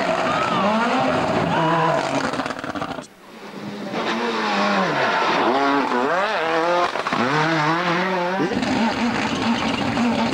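Ford Escort RS Cosworth Group A rally cars passing at speed, their turbocharged four-cylinder engines revving up and dropping back with each gear change. The sound briefly falls away about three seconds in, and near the end turns to a rougher, noisier rush.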